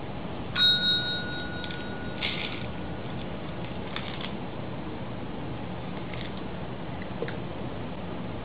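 A push-button service bell is rung once by a cat asking for its food; the ding comes about half a second in and rings out for about two seconds. A steady hiss lies underneath.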